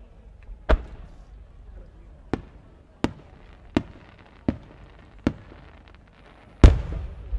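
Aerial firework shells going off: six sharp bangs less than a second apart, then a much louder, deeper boom near the end that echoes on.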